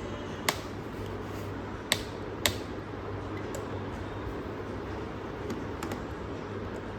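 Small Phillips screwdriver turning the captive screws of a Dell Latitude 14 3420 laptop's bottom cover: three sharp clicks in the first two and a half seconds, then a few fainter ticks, over a steady low hum.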